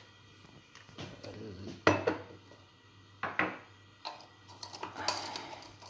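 Kitchenware clattering on a stone countertop: a few separate sharp knocks of ceramic mugs being set down, the loudest about two seconds in, then small clicks of a metal spoon in a glass sugar jar near the end.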